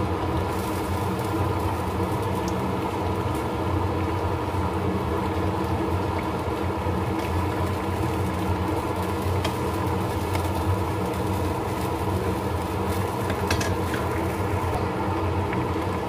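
A steady mechanical hum runs throughout. Over it come a few faint scrapes and taps of a wooden spatula stirring a coconut-milk vegetable stew in a pan.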